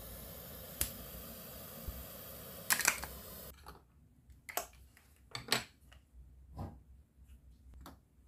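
Plastic toy-food clicks and taps: a toy knife working on a plastic toy chicken drumstick and the pieces set into a plastic bowl, with a loud crackly cluster of clicks about three seconds in and then single taps about once a second. For the first three and a half seconds a steady sizzling hiss runs under them, then cuts off suddenly.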